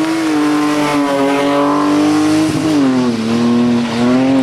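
Rally car engine running at high revs with a steady pitch, which drops lower about two and a half seconds in and then holds.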